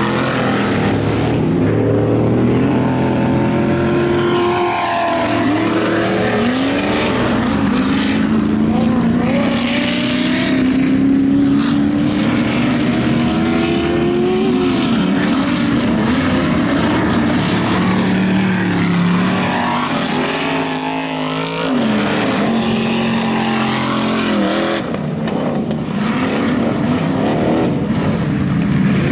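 Ultra4 off-road racing buggies' engines revving hard as they climb over a rock obstacle, the pitch rising and falling again and again.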